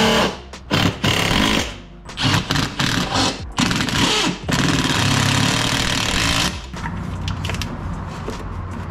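Cordless impact tool hammering in several short bursts, driving fasteners into the underside of a golf cart's front body. The last and longest burst lasts about two seconds, and the rest is quieter handling noise.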